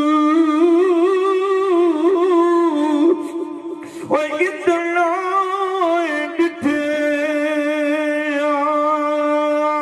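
A man singing long, drawn-out melodic lines unaccompanied through a microphone, the notes wavering up and down. The line drops away about three seconds in, resumes a second later, breaks briefly past six seconds, then settles into a long steady held note.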